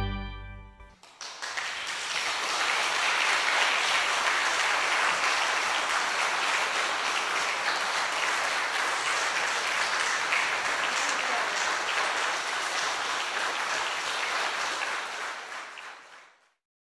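The final chord of a pipe organ releases and dies away within the first second, then an audience applauds steadily, fading out near the end.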